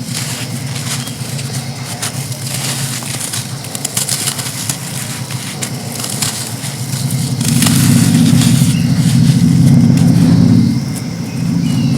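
Chunks of sand crumbling and crunching, a run of crisp crackles. Under it runs a steady low hum that gets louder from about seven and a half seconds in and drops back shortly before the end.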